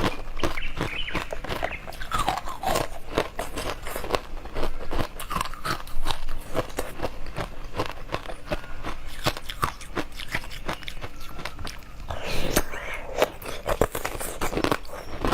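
Close-miked eating: a person biting and chewing crunchy food, a dense, irregular run of crunches and crackles.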